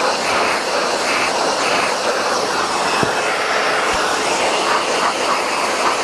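Shop vacuum running steadily, its hose nozzle sucking dust off wooden deck-core pieces, the suction sound wavering as the nozzle moves over the wood.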